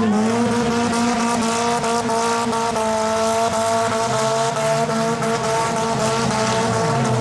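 Figure-8 demolition derby cars' engines running together at high, fairly steady revs as they race around the track.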